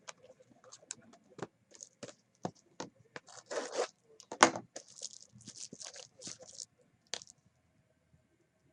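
Trading-card boxes and their packaging being handled: irregular scraping, light taps and crinkling plastic wrap that stop about seven seconds in.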